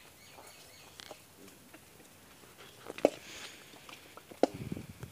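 Wet fish being handled and dropped into the metal pan of a hand-held balance scale: a few faint knocks, then two sharp slaps or clanks, about three seconds in and again near the end.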